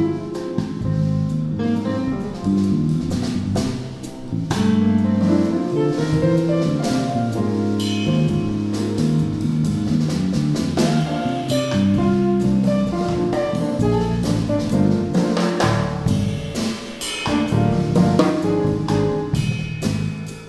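Live jazz trio of grand piano, bass and drum kit playing a tune. Piano chords and runs sit over a walking bass line and busy drumming with cymbals, easing off briefly about four seconds in.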